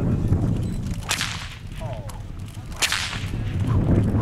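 Bullwhip cracking twice, two sharp cracks a little under two seconds apart, aimed at two targets held out at arm's length.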